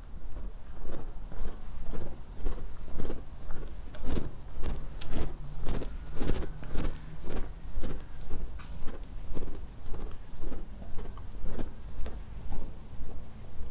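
Footsteps at a steady walking pace, about two steps a second, over a low steady rumble.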